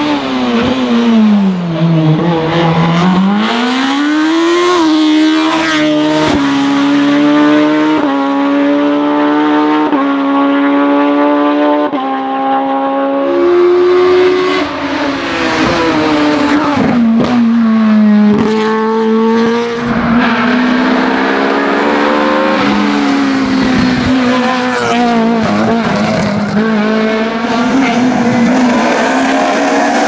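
Mk1 Volkswagen Golf hill-climb race car at full throttle, its engine revving high and running through the gears with quick shifts. About two seconds in, the revs drop and climb back.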